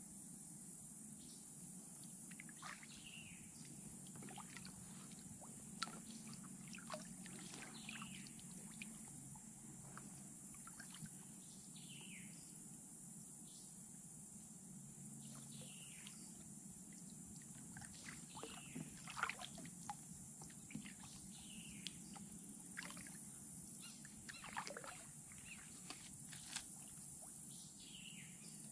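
Quiet kayak paddling: water dripping and trickling off the paddle blades with small irregular splashes, over a faint steady hiss.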